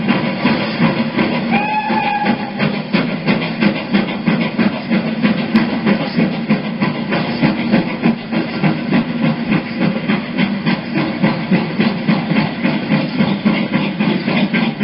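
GWR Hall class 4-6-0 steam locomotive Hagley Hall pulling away, its exhaust beating in a steady rhythm. A short whistle sounds about two seconds in.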